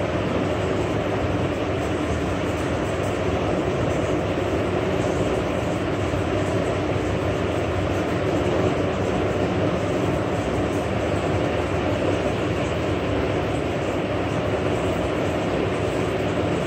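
Steady, even rushing noise with no rhythm and no speech, unchanging throughout.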